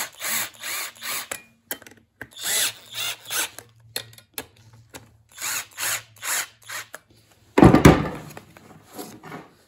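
Cordless drill with a nut-driver bit tightening a worm-drive hose clamp, run in more than a dozen short trigger bursts, each a quick spin-up and stop. A louder thump comes about eight seconds in.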